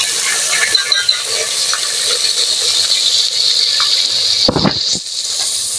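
Ground onion and ginger-garlic paste sizzling in hot oil in an aluminium pot: a steady frying hiss with scattered crackles. A brief low thump about four and a half seconds in.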